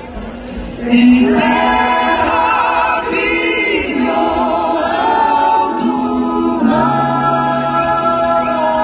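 A large crowd singing a song together, many voices at once, coming in loudly about a second in. A low steady accompaniment note joins near the end.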